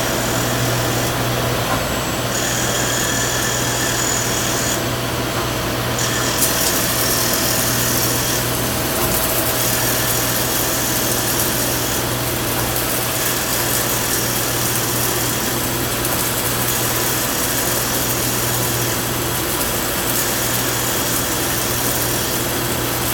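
Yang CNC lathe running with a steady hum, its tool cutting dry as it hollows out the back of a turned bar-stock tank cap. The hiss of the cut brightens about six seconds in.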